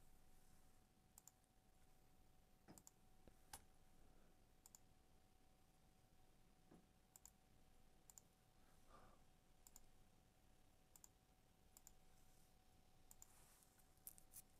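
Near silence with faint, irregular computer mouse clicks, about a dozen scattered through, over a faint steady electrical tone.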